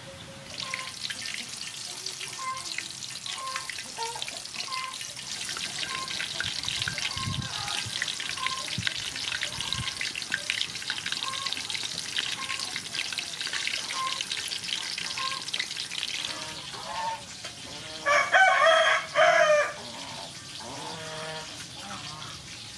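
Vegetable slices coated in fish-ball paste deep-frying in hot soybean oil in a wok: a steady crackling sizzle that starts about half a second in and dies down after about 16 seconds. Near the end a loud pitched call sounds twice in quick succession.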